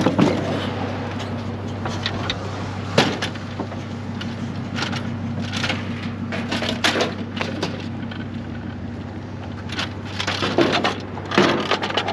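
Scattered knocks, clanks and rattles of an aluminium hand truck being taken off a wooden trailer and wheeled over concrete, loudest about three seconds in and again near the end, over a steady low hum.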